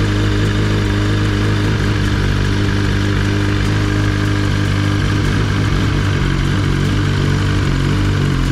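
Kawasaki ZX-10RR's inline four-cylinder engine idling steadily through a full Graves titanium exhaust.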